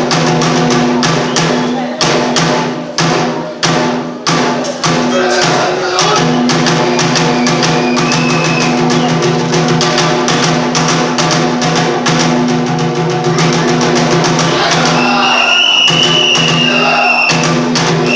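Bitchu kagura accompaniment: a run of sharp drum strokes over held low tones in the first few seconds, the held tones carrying on after that, and a high, thin held note entering near the end.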